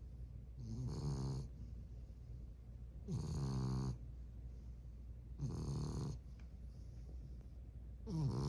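French bulldog puppy snoring in its sleep: four pitched snores about every two and a half seconds, the last one starting near the end.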